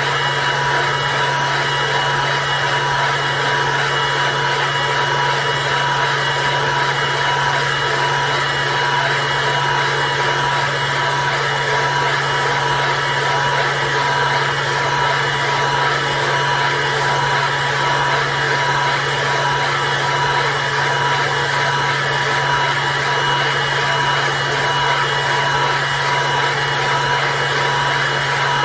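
xTool D1 Pro diode laser engraver running an engraving job: a steady whirring hum of fans and airflow, with a couple of constant high whines.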